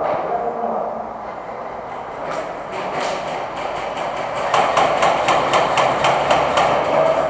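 Airsoft gun firing a rapid string of sharp shots, about five or six a second, starting a couple of seconds in and growing louder after about four seconds.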